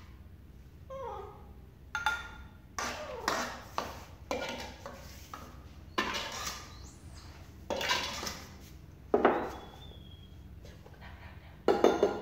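A metal spatula scraping and clanking against a steel wok while vegetables are stir-fried. It comes as about a dozen uneven strokes, each with a short metallic ring, the loudest near the end.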